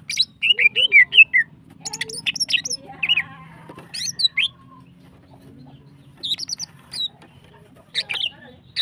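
Female greater green leafbird (cucak ijo) calling in a breeding-season state: quick runs of sharp, bending chirps and squawks. The calls are dense for the first few seconds, break off in a pause, then return in short bursts near the end.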